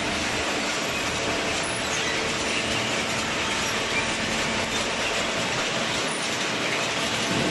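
Machinery running with a steady, dense mechanical din and a few faint hums, no pauses or changes.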